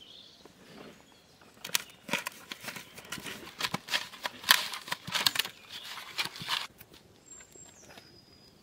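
Hands mixing raw cut gania (kakila) fish pieces with salt and turmeric: an irregular run of soft slaps and squelches that starts about two seconds in and lasts about five seconds.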